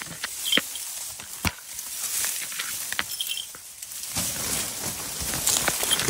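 Dry reed stems and grass rustling and crackling as someone pushes through them on foot, with irregular sharp snaps.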